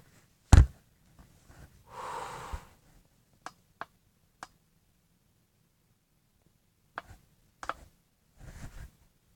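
Handling of a plastic solar LED globe while its on-off switch is checked: one loud knock about half a second in, a short rushing noise around two seconds, then scattered small sharp clicks.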